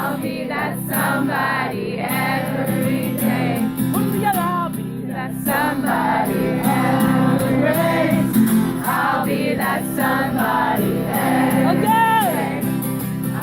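Music: a song with several voices singing a melody over steady band accompaniment.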